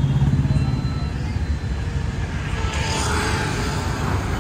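Road traffic noise: a steady low rumble of engines and tyres, with a louder hissing swell about three seconds in.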